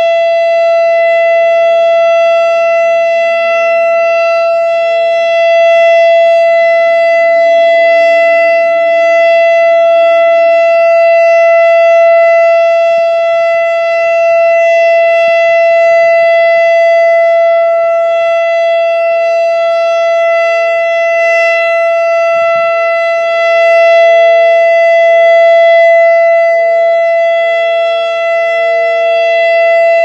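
ASC Quadren Q-3200 electronic outdoor warning siren sounding its Alert signal: a loud, steady tone that holds one pitch without rising or falling.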